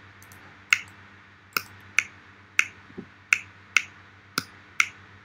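A recording of sharp clicks played back: eight separate clicks at irregular intervals, about half a second to a second apart.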